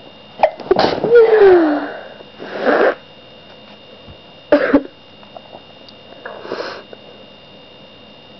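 A person sneezing twice: a loud sneeze about half a second in, its voice falling in pitch, then a shorter, sharper sneeze near the middle. Each is followed by a short breathy sound.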